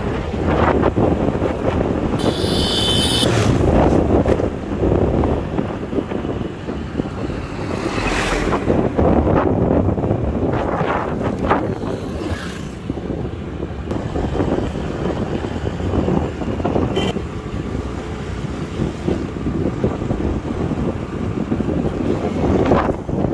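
Wind buffeting the microphone of a moving Honda Activa scooter, rising and falling in gusts over the scooter's engine and road noise. A brief high-pitched sound comes about two seconds in.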